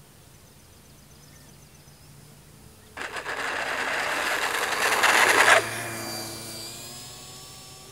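Electric motor and spinning propeller of a Tower Hobbies Cessna 400 RC model plane running a 3-cell power system, landing on a paved runway. A loud rushing noise starts suddenly about three seconds in, builds for over two seconds and cuts off abruptly. A fainter motor whine follows, slowly falling in pitch.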